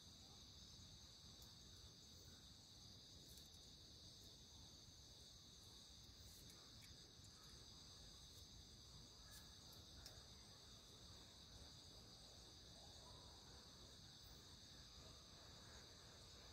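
Faint, steady chorus of night insects, a continuous high trill that never breaks, with a few faint clicks scattered through it.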